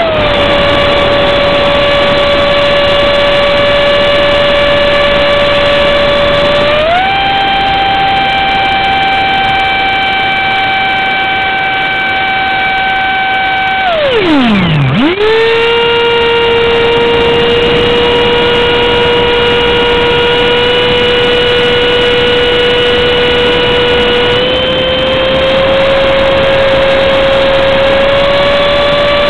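Electric motor of a 4S-powered foam RC F-18 jet, heard from a camera on the airframe: a steady high whine with overtones over a hiss of rushing air. The whine drops in pitch just after the start, steps up about seven seconds in, plunges to a low growl about halfway through and climbs straight back, then rises slowly toward the end.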